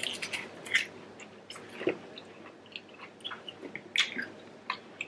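Close-up chewing of saucy prawns: wet mouth smacks and scattered small clicks, with a couple of louder smacks about two seconds in and about four seconds in.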